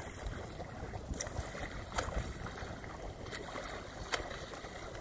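Short water splashes about once a second over a steady low rumble of water and boat noise.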